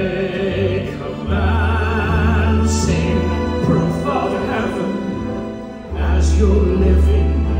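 Live theatre pit orchestra playing a slow passage, heard from the audience. Long deep bass notes swell in about a second in and again near six seconds, under a high, wavering melody line.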